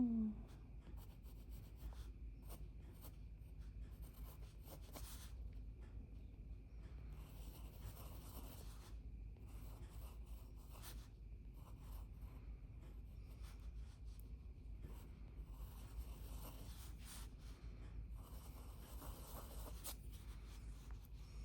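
Faint scratching of a drawing tool on paper, coming in short spells of strokes with pauses between them, as a bird and branch are sketched. A brief vocal sound at the very start.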